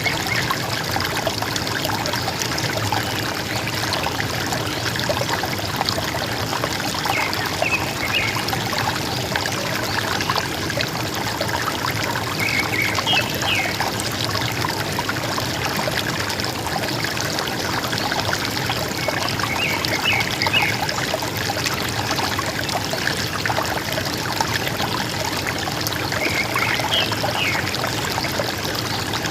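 River water trickling and gurgling steadily, with a forest bird giving a short phrase of a few high notes about every six to seven seconds, four times.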